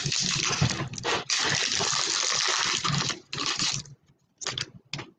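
Foil trading-card pack wrapper crinkling loudly as it is torn open and pulled apart, for about four seconds, followed by a few short rustles of the cards being handled.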